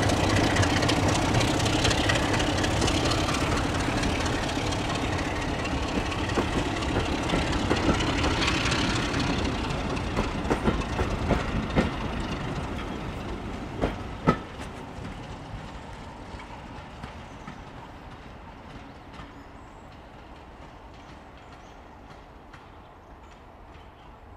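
A pair of BR Class 33 diesel locomotives hauling a rake of coaches past and away, their English Electric eight-cylinder engines running and fading steadily as the train draws off. Coach wheels click over the rail joints as the carriages go by, with two sharp knocks just past the middle.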